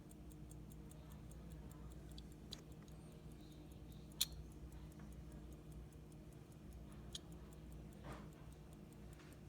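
Waltham hunter-case pocket watch ticking quickly and evenly, about five ticks a second, its freshly overhauled movement running. A few louder single clicks stand out, the loudest about four seconds in.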